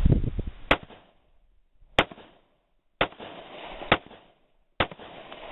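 Five shots from a .45 ACP semi-automatic pistol, fired about a second apart, each followed by a short fading echo.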